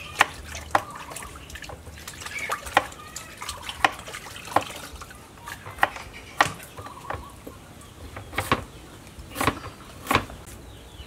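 Knife blade striking a cutting board in irregular sharp knocks while food is cut by hand, over the wet sloshing of hands working in a bowl of water.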